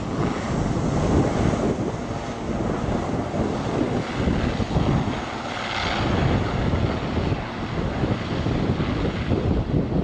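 Aircraft engines at takeoff power: a loud, steady low rumble that swells and fades slightly.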